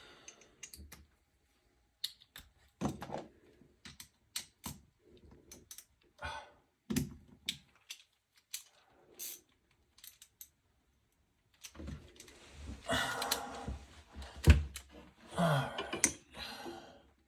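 Ratchet and sockets of a socket set clicking and clinking in scattered short bursts, with busier clicking and rattling over the last five seconds, as the old faucet's mounting hardware is worked loose.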